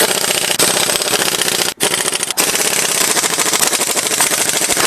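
Pneumatic impact wrench hammering in long bursts, tightening wheel lug nuts, with brief pauses about two seconds in.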